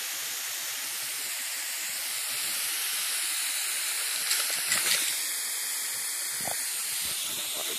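Garden hose spraying water in a steady hiss, with a few brief sharp sounds about halfway through.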